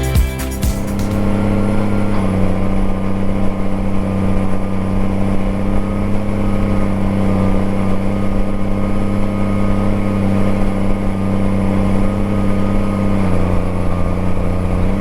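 Tractor engine running steadily under load while pulling a chisel plow, a deep even hum. Its pitch eases down slightly about two seconds in and again near the end.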